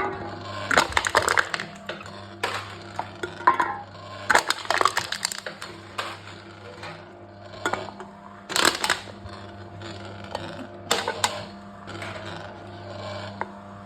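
Aluminium drink cans being crushed by a machine: repeated bursts of crumpling, crackling metal, about nine over the stretch, over a steady low hum.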